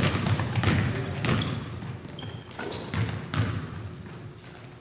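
Basketball bouncing on a hardwood gym floor during play, with a few sharp bounces in the first second and a half and two more about three seconds in, mixed with short high sneaker squeaks. The hall echoes, and the sound fades toward the end.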